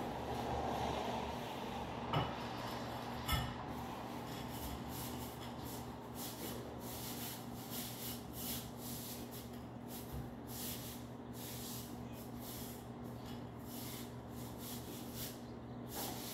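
Hand rubbing and pressing ceramic hexagon floor tiles into thinset mortar: a run of short, irregular scraping strokes, with two sharp clicks about two and three seconds in. A steady low hum sits underneath.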